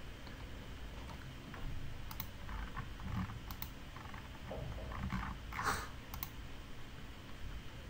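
Faint, scattered clicks and light rustling at a computer desk, a few sharp ticks among soft shuffles, the loudest rustle a little before six seconds in.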